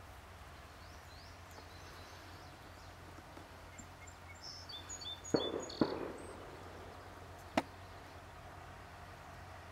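Quiet rural outdoor ambience with a faint, steady low hum. A little after the middle a bird gives a short run of high chirps, with two sharp clicks around the same time and one more a couple of seconds later.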